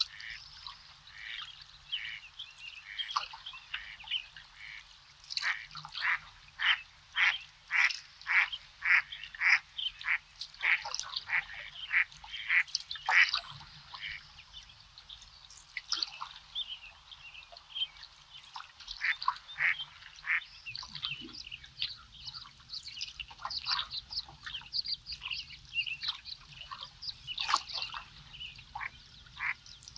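A chorus of short animal calls from the marsh, repeating about twice a second and thickest in the middle and again near the end, with a few higher bird calls above.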